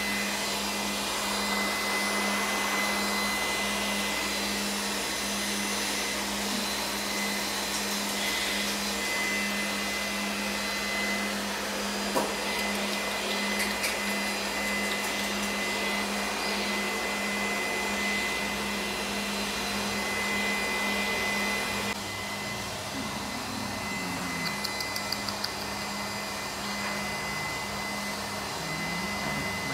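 A steady electric machine whirr with a low hum and a thin high whine, continuous throughout and dropping a little in level about two-thirds of the way in. A few faint quick ticks come near the end.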